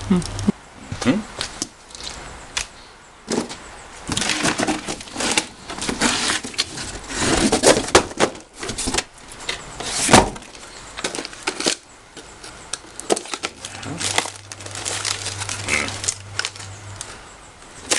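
Plastic parts and packaging of a toy-grade RC crawler being handled: irregular clicks, knocks and crinkling rustles.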